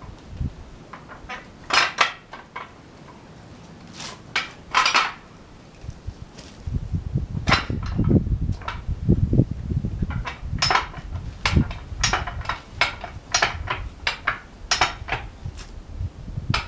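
Metal clanking and clinking as a heavy oak log is worked onto a sawmill by hand: a few sharp clinks in the first five seconds, then from about six and a half seconds a low rumble under a quick run of metallic clicks and knocks.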